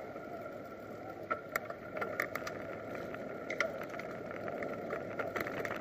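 Riding noise picked up by a camera mounted on a bicycle: a steady rush of wind and tyres on the road with a faint steady whine, and scattered sharp clicks and rattles from bumps, starting about a second in.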